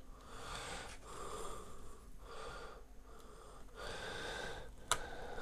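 A man breathing audibly in and out, about five slow breaths close to the microphone, with a single sharp click near the end.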